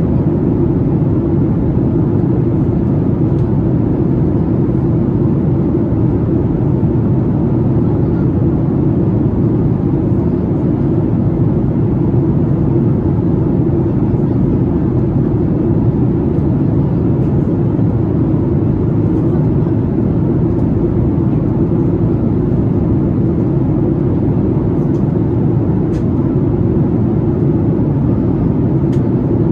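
Steady low cabin drone inside a Boeing 737-8 MAX climbing out after takeoff: the CFM LEAP-1B engines and the rush of air along the fuselage, heard from a window seat. The sound stays even throughout, mostly low rumble.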